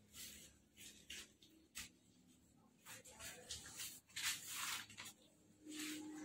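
Faint, irregular rustling and scraping in short bursts, busiest in the second half, with a brief low hum near the end.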